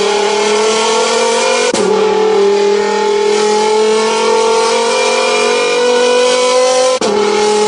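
Car engine sound effect revving up as the cartoon car drives away: a steady engine note that slowly climbs in pitch, drops back and starts climbing again about two seconds in and once more near the end.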